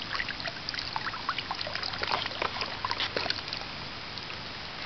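Muddy water trickling and dripping from a hand into a shallow puddle, many small irregular drips and splashes that die away about three and a half seconds in.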